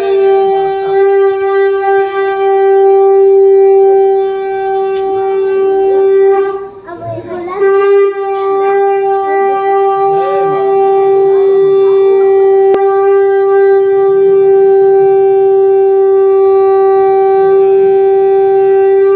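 Conch shell (shankh) blown in long steady blasts at one unchanging pitch: the first breaks off about seven seconds in, and a second, longer blast follows a moment later. Voices murmur faintly underneath.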